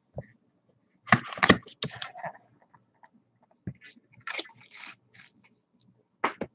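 Handling noise: a cardboard collectibles box and a clear plastic puck cube being shifted and set down on a table, heard as short scrapes and taps in a few bursts, the loudest about a second in and just before the end.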